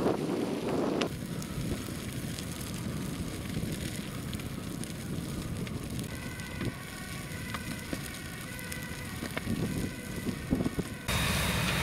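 A burning farm tractor, the fire crackling steadily with sharp pops scattered through it. Near the end a louder, steady rushing noise suddenly takes over.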